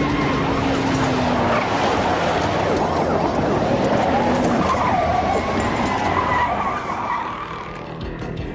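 1969 Chevrolet Chevelle doing a burnout: rear tyres squealing and spinning over its running engine, easing off near the end.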